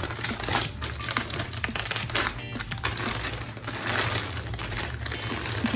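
Packaging crinkling and rustling as it is handled and opened to get at the wig, with many small irregular clicks, over background music.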